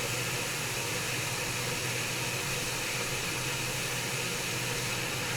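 Hot air rework station blowing a steady hiss of hot air onto a laptop circuit board while it desolders the power button.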